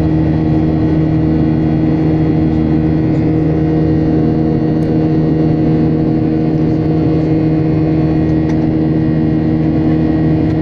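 Steady jet engine drone of a Boeing 737's turbofans during the climb after takeoff, heard inside the passenger cabin. A constant rush of air and engine noise carries several steady humming tones and does not change.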